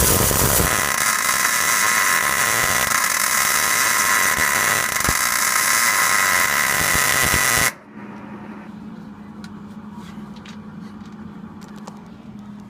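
Small MIG welder laying a weld: a loud, steady hiss with a buzzing tone in it, which stops abruptly about eight seconds in, leaving a faint low hum.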